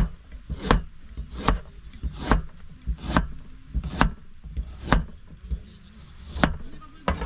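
Knife chopping on a cutting board, about one stroke a second, with a short break shortly before the end.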